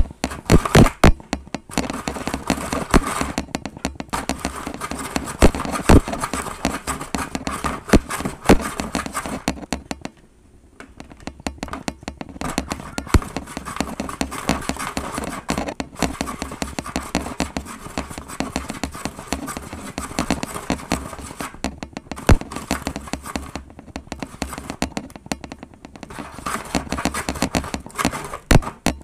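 Snoopy toy snow cone maker being hand-cranked, its blade shaving ice cubes with a rapid, uneven crunching and clicking that stops briefly about ten seconds in.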